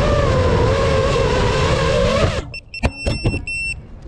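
FPV quadcopter's electric motors and propellers whining, the pitch wavering with the throttle, then cutting off abruptly about two seconds in as the drone comes down onto the pavement with a few sharp knocks. Its onboard buzzer then starts giving short, high beeps.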